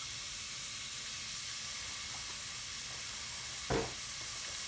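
Chopped onions sizzling steadily in hot olive oil in a stainless steel pan, at the start of caramelizing. A single short knock comes near the end.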